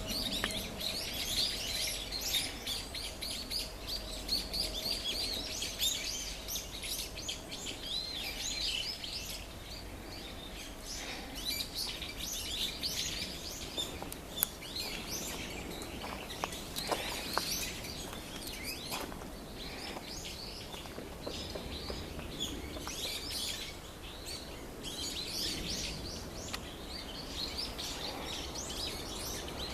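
A flock of about ten brown-eared bulbuls calling together in a dense run of high, overlapping calls, a few sharp clicks among them midway. The uploader takes this chorus for the bulbuls' earthquake alarm.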